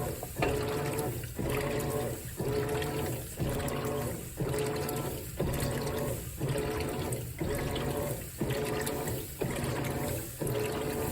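Whirlpool WTW4815EW1 top-load washer agitating: its single-action agitator swishes the wash water back and forth in even strokes about once a second, each stroke with a motor hum and water sloshing.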